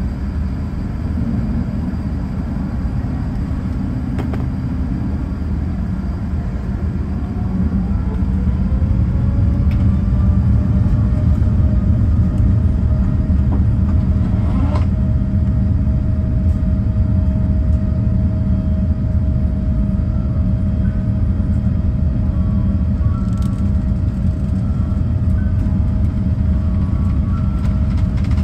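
Boeing 787-9 jet engines spooling up for takeoff, heard from inside the cabin: a steady low rumble that grows louder about eight seconds in, as a whine rises in pitch and then holds steady through the takeoff roll.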